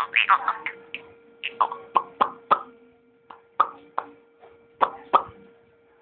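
A series of short mouth clicks and pops, about a dozen at irregular intervals, over a faint steady hum.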